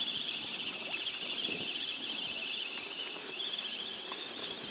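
Spinning reel being wound in, its gears giving a steady high whir that swells and fades as the handle is turned faster and slower.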